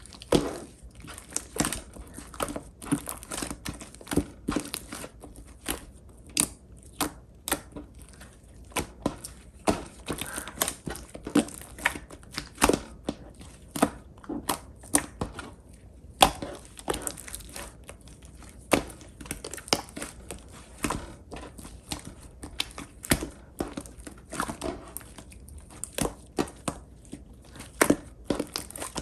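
Clear pink slime being squished and pressed by hand, giving an irregular stream of sharp clicks and pops, a few every second.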